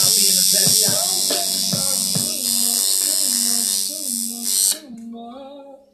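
Tattoo machine buzzing steadily as it needles skin, cutting off about three-quarters of the way through. Music with a singing voice plays underneath.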